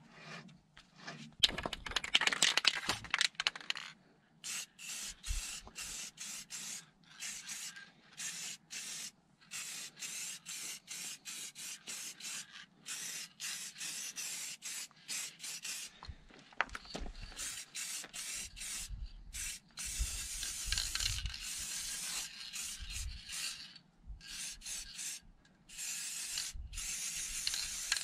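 Aerosol spray paint can spraying in many short hissing bursts separated by brief gaps, with a louder stretch of noise about two seconds in.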